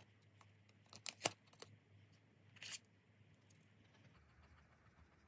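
Quiet handling of paper cards and a crayon on a tabletop: a few sharp clicks and taps about a second in, then a brief scraping rustle near three seconds. Faint crayon strokes on paper follow toward the end.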